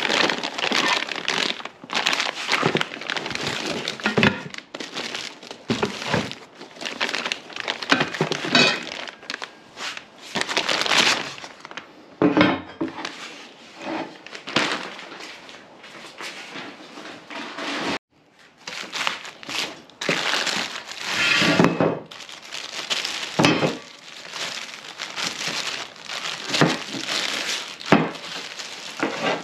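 Plastic packing material crinkling and cardboard being handled while a boxed truck bed rack kit is unpacked, with occasional thunks as parts are set down.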